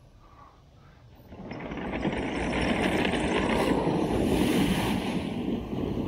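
Water splashing and churning as a remote-controlled wooden tank drives into a shallow creek, its tracks thrashing the water. Faint at first, then building over about a second to a steady, heavy churning.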